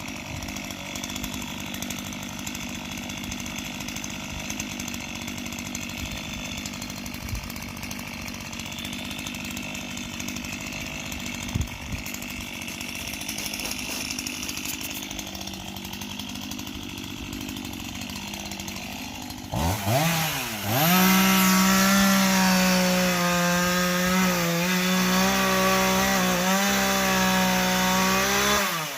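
Stihl two-stroke chainsaw running at low level, then revving up about twenty seconds in and holding at full throttle with small dips in speed as it cuts into a dead tree being felled, before dropping off near the end.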